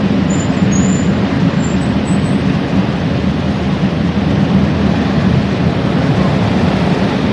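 Steady rushing and splashing of water as a muddy toy vehicle is washed, starting and stopping abruptly.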